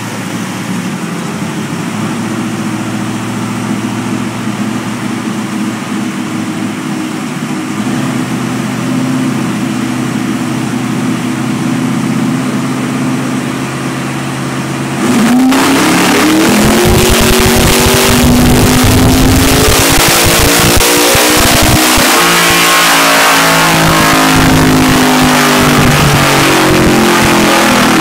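Twin-turbo 632 cubic-inch big-block Chevy V8 in a Chevelle idling steadily on a chassis dyno. About halfway through it suddenly goes to full throttle, loud, with the engine's pitch climbing as it revs up under load.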